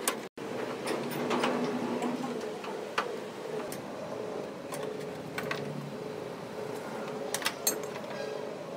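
Scattered light clicks and taps of a hand tool working the screws of a car's front bumper, over a steady background hiss. From about halfway through, a faint tone pulses about two to three times a second behind it.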